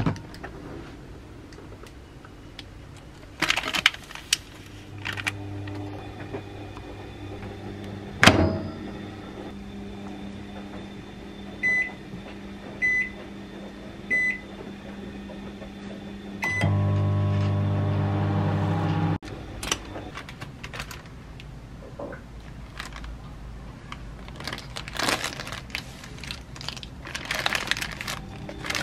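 Countertop microwave oven running with a steady hum, then a sharp click about eight seconds in. Four short keypad beeps follow as the timer is set, and the oven starts with a louder hum that cuts off suddenly. Plastic packaging rustles near the end.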